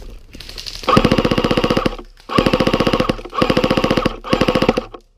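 Electric airsoft gun firing four full-auto bursts, rapid evenly spaced shots with the gearbox whining under them, each burst lasting about half a second to a second.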